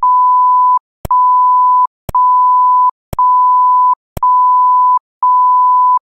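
Six loud, steady electronic beeps at a single pitch near 1 kHz, each lasting about three-quarters of a second and repeating about once a second, with a click at the start of each and dead silence between.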